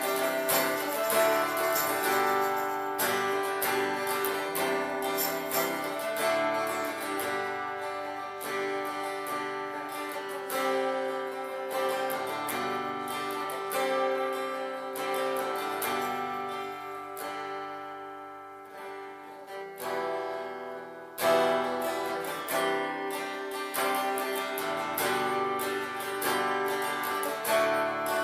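Instrumental worship music led by a strummed acoustic guitar, with no singing. It grows softer to a low point about two-thirds of the way through, then comes back in louder.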